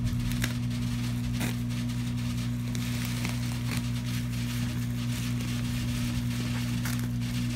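Scissors snipping through bubble wrap and the plastic crinkling, heard as scattered sharp clicks and crackles over a steady low hum.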